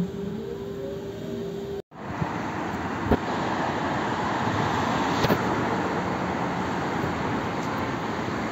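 Road traffic on a multi-lane city avenue: a steady wash of passing cars, with two short knocks. Before it, in the first two seconds, a steady hum with a rising whine that cuts off abruptly.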